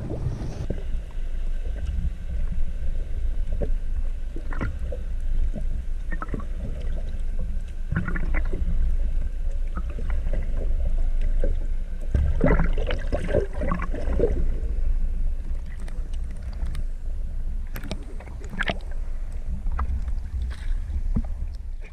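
Muffled low rumble of moving water with scattered knocks and clicks, heard through an underwater camera as it is hauled up toward the surface. The knocks and water noise are busiest about halfway through.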